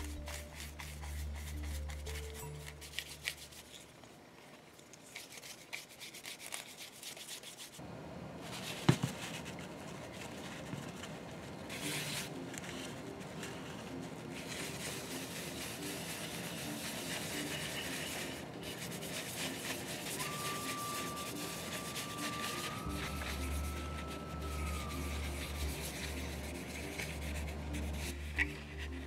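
A brush and then a cloth rubbing over a leather wallet, working finish into the leather in short scrubbing strokes, with a sharp tap about nine seconds in. Background music with a low bass line plays underneath.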